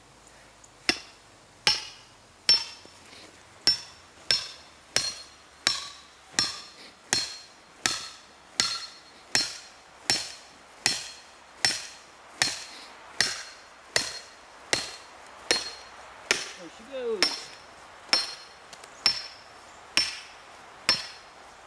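Steel splitting wedge being driven into a firewood log by a hammer: steady, evenly spaced blows, about one every three-quarters of a second, each with a sharp metallic ring. The wedge sinks into the round without splitting it and ends up stuck.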